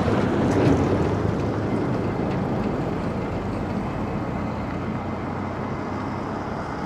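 A road vehicle passing by, its rushing noise loudest about half a second in and slowly fading away.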